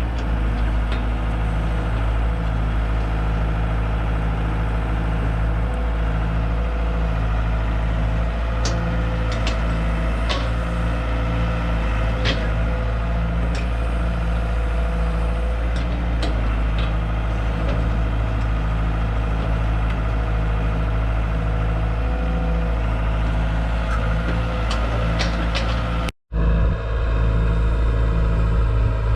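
Excavator's diesel engine running steadily at a constant speed, with a few scattered clicks, as the machine is demonstrated. The sound cuts out for an instant near the end.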